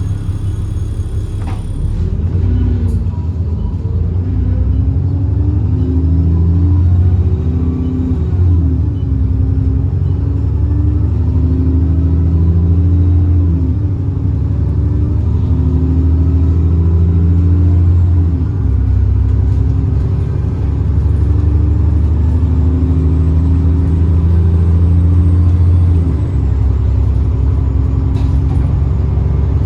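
Diesel engine of an ADL Enviro 400 double-decker bus accelerating under load, its pitch climbing and then dropping back several times as the gearbox changes up. A faint high turbo whistle rises through the second half and falls away when the engine eases off near the end.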